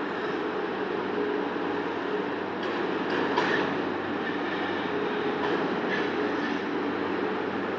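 Steady industrial workshop noise: a machinery hum under a broad rushing noise, with a few short metallic knocks about three seconds in and again near six seconds.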